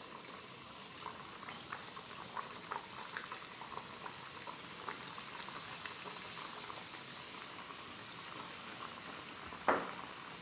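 Strips of flour-and-water dough deep-frying in hot oil in a pot: steady sizzling with scattered crackles, busiest in the first half. A single sharp knock sounds near the end.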